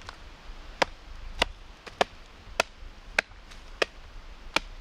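Axe chopping a notch into a log: seven sharp, evenly spaced strikes, about one every 0.6 seconds.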